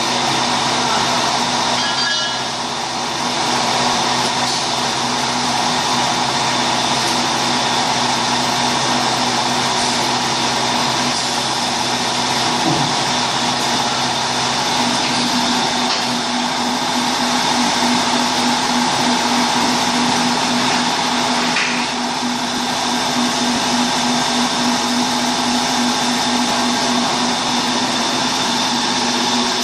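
Mini CNC milling machine running: a steady mechanical whir with a constant high whine, its low hum growing stronger about halfway through.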